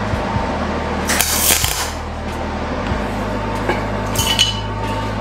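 Two short tack welds on steel tubing, each a crackling hiss lasting under a second: one about a second in, a shorter one about four seconds in. Background music plays underneath.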